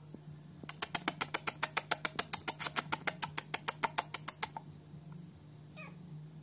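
Rapid, even pulsing from a cat, about eight pulses a second for about four seconds, then a short, faint rising kitten mew near the end.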